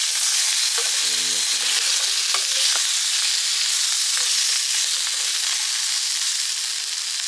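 Sausages sizzling in a stainless frying pan over a gas-canister camp stove: a steady, loud frying hiss with a few sharp pops of spitting fat.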